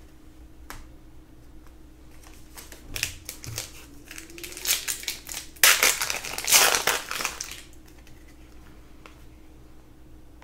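Trading-card pack wrappers crinkling and crumpling as packs are opened and cards handled, with light clicks. The rustling builds about three seconds in and is loudest around six to seven seconds.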